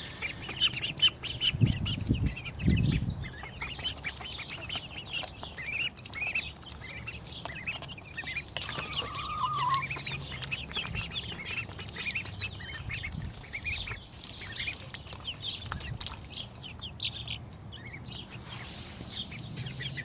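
Welsh Harlequin ducklings and chicks peeping in quick, high chirps, with a couple of low thuds about two to three seconds in.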